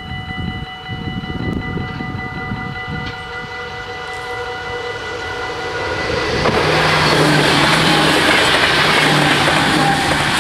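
Level-crossing warning bells ringing steadily. About six seconds in, an NS SGMm Sprinter electric multiple unit approaches and passes, and its rising rush of wheel and rolling noise with a low motor hum becomes the loudest sound, covering the bells.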